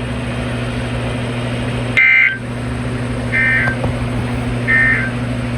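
Emergency Alert System end-of-message signal: three short, identical bursts of SAME data tones, about a second and a half apart, marking the end of the alert. A steady hum and hiss runs underneath.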